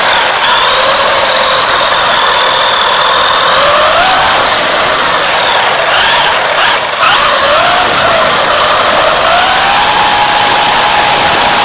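WLToys 144001 RC buggy's electric motor and gears whining, the pitch rising and falling with the throttle, over a steady rush of tyre noise on asphalt. The sound dips briefly about seven seconds in.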